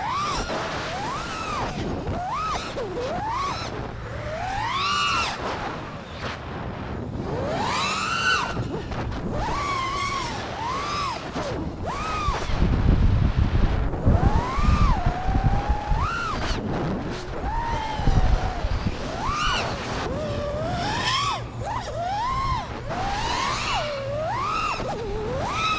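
FPV freestyle quadcopter's brushless motors whining, the pitch sweeping up and down over and over as the throttle is punched and cut. Heavy wind rumble on the onboard microphone about halfway through, and again briefly a little later.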